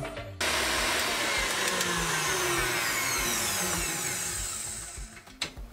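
KitchenAid Artisan stand mixer with a wire whisk whipping egg yolks and sugar at high speed, cutting in suddenly about half a second in. It is then switched off: the motor's whine falls in pitch and fades as it winds down, with a couple of knocks near the end.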